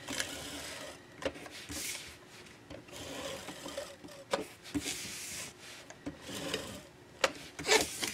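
Handheld Fast Fuse adhesive applicator drawn across the back of a sheet of paper in repeated strokes, laying down adhesive with a rubbing, rasping sound, with a few sharp clicks between strokes.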